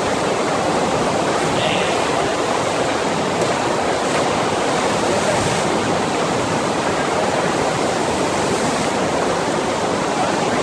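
Steady rush of water pumped across a FlowRider sheet-wave surf machine, an even unbroken roar.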